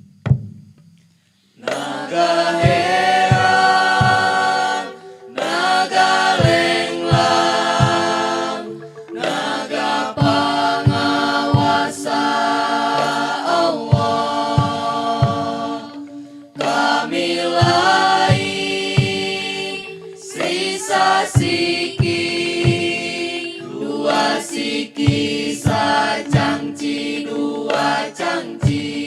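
A group of voices sings a Sundanese traditional chant in long held phrases, starting after a short quiet moment. Short, sharp percussion strikes sound beneath and between the lines.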